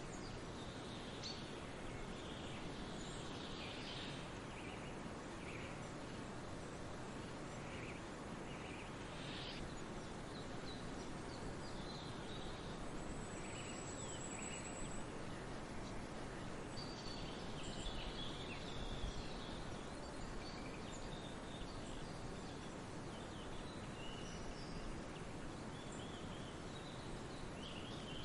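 Several small birds chirping and trilling over a steady outdoor hiss, with short high calls scattered through and a thin high whistle held for about two seconds midway.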